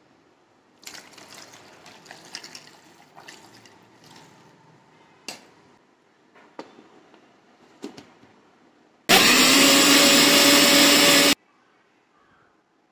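Electric blender running on milk, ice cubes, mango and ice cream: a loud, steady motor whir for about two seconds that starts suddenly about nine seconds in and cuts off abruptly. Before it, milk pouring into the jar and a few sharp clicks of the jar being handled.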